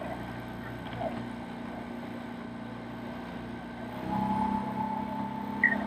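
Motorboat engine running steadily with an even hum; about four seconds in it gets louder and its note rises as the boat speeds up.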